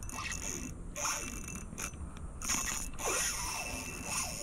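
Spinning reel being cranked in short bursts, its gears whirring, as a hooked fish is reeled in.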